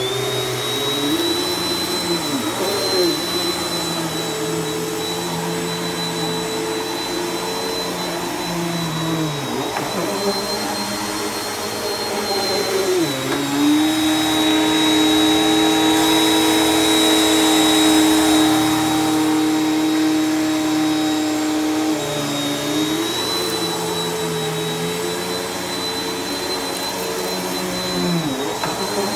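Bissell PowerForce upright vacuum cleaner running as it is pushed over a thick shag rug: a steady motor hum with a high whine on top. Its pitch dips and shifts every few seconds with the strokes, and holds lower and steadier for several seconds in the middle.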